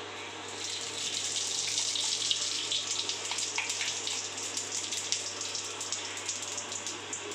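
Whole spices sizzling and crackling in a kadhai of hot oil. The sizzle swells about half a second in as they hit the oil.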